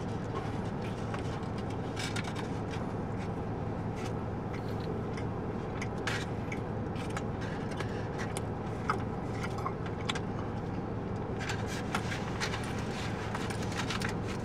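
Aluminium foil burrito wrapper crinkling in the hands and a mouthful being chewed: short scattered crackles and clicks over a steady low hum inside a car.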